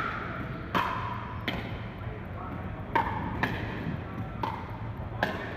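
Pickleball paddles striking a hard plastic ball during a rally: about six sharp pops at uneven intervals, each with a brief ringing echo in a large hall.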